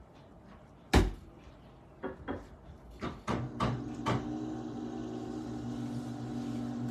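A lump of clay slapped down onto the potter's wheel head about a second in, then patted a few times; a little after three seconds the wheel's electric motor starts and hums steadily as the clay turns for centering.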